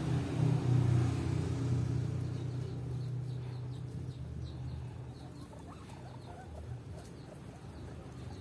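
Guinea pig eating mango, with many small, quick high squeaks from about three seconds in. Under it is a low engine hum that is loudest at first and fades.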